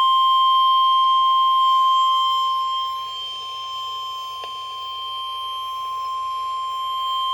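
NOAA Weather Radio's 1050 Hz warning alarm tone: one steady, unbroken high beep, the signal that a National Weather Service warning is about to be read.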